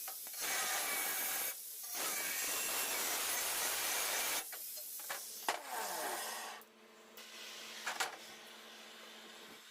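Power tool cutting sheet aluminum, a rough hissing noise in two long stretches. About halfway through the motor winds down, falling in pitch.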